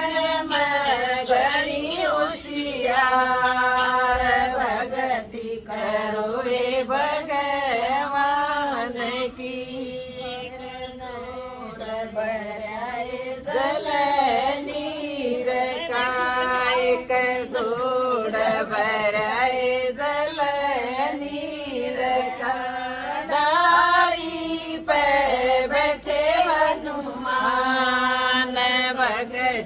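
A woman singing a Hindi folk bhajan in a chant-like style, with long, wavering held notes.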